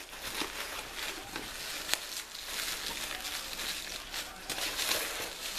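Rustling and handling of packaging as a small box is opened, with a few light clicks.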